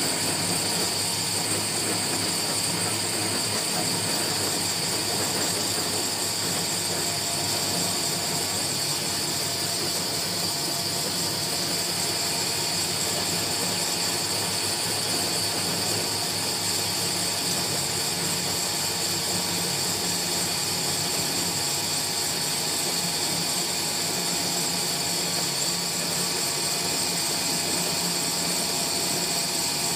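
Small electric feed pellet mill running steadily while mash is fed in and pressed into pellets. It makes a constant mechanical hum with a steady high-pitched whine over it.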